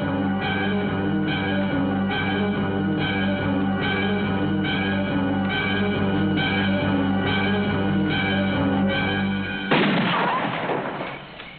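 Film score music: sustained tones over a steady low drone, with a figure repeating about every two-thirds of a second. Near the end a loud sudden crash cuts in and dies away.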